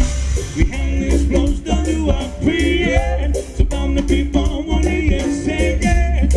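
Live ska band playing through a PA: electric guitars, bass and drum kit keeping a steady beat, with a lead vocalist singing over it.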